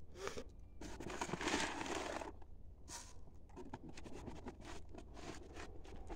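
Plastic bag of dry cat biscuits rustling and crinkling as the food is shaken out, in uneven spells, the loudest from about one to two seconds in.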